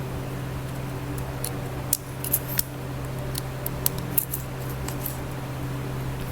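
Scattered small sharp clicks and taps of hand tools working on an Oppo A54 smartphone's parts, several in quick succession about two seconds in and again a little later, over a steady low hum.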